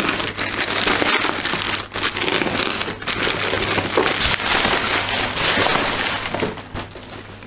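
Black plastic shipping bag and bubble wrap crinkling and rustling as a parcel is pulled open by hand, the box inside being drawn out of its wrapping. The crinkling dies down about six seconds in.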